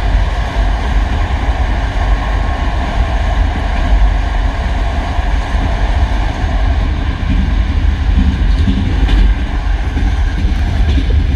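Passenger train running along the rails, with a steady loud rumble and wheel noise.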